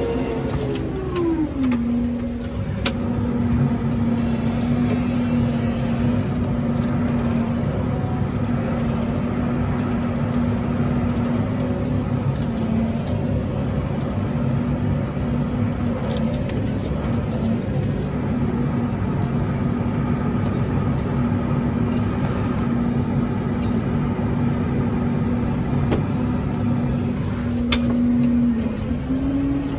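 Case Maxxum 125 tractor engine running, heard from inside the cab. Its pitch falls as the revs drop about two seconds in, holds steady, and rises again near the end, with a few faint clicks.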